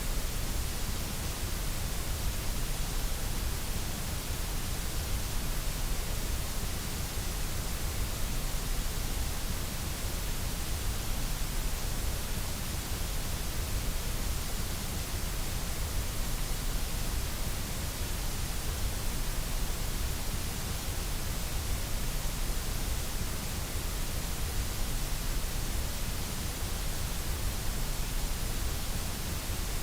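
White noise: a steady, unchanging hiss spread evenly across the whole range, with a heavier low rumble underneath.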